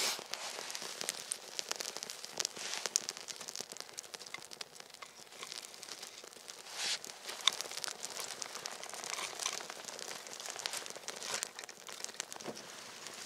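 Small campfire of dry twigs and curled wood shavings crackling as it catches, a dense run of irregular snaps and pops over a soft hiss, with a few louder snaps.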